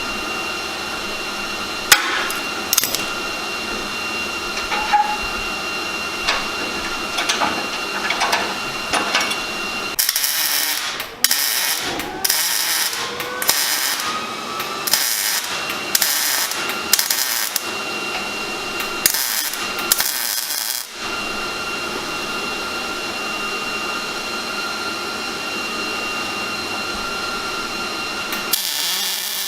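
Power-tool noise from metal fabrication work: a steady running tool with a few sharp knocks, then a run of short, harsh bursts for about ten seconds before the steady sound returns.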